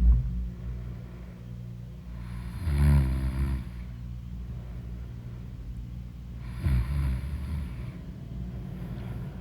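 A person snoring loudly in sleep: two long, rough snores about four seconds apart, the first the loudest, over a steady low hum.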